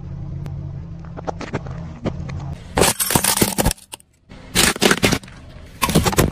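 Car tyre rolling slowly over objects on asphalt and crushing them: a steady low hum with small crackles, then three loud crunching, cracking bursts as glass and aluminium cans give way under the wheel.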